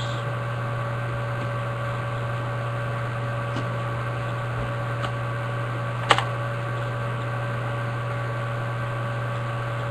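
Steady electrical hum and hiss with a few fixed tones, like a fan or appliance running, and a single light click about six seconds in.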